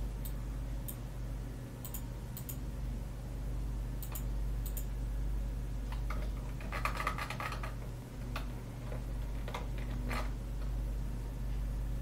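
Computer keyboard and mouse clicks: scattered single clicks, with a quick run of keystrokes about six and a half seconds in, over a steady low electrical hum.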